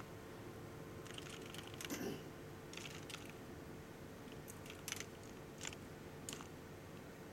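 Scattered keystrokes and clicks on a computer keyboard as a short command is typed, faint, over a steady low hum.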